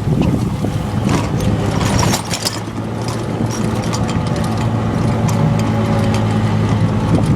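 Souped-up off-road golf cart's engine running steadily, with rattling clicks and knocks from the cart, busiest in the first few seconds.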